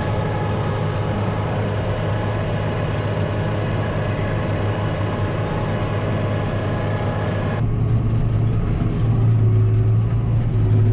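Tractor engine running steadily under load while pulling a working manure spreader that flings out manure, a loud low hum. About two-thirds of the way in the sound changes abruptly: the hiss on top drops away and the engine hum grows a little louder.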